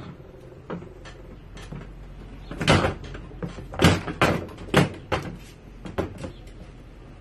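A run of knocks and thumps as a Fiat Cinquecento Sporting seat, with its metal frame and rails, is tipped over and set down on a workbench. The loudest knocks come about three and four seconds in, with smaller ones after.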